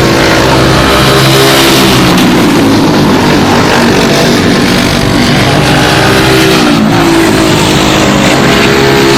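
Several four-stroke racing go-kart engines running hard, overlapping, their pitch rising and falling as the karts accelerate and back off through the corners.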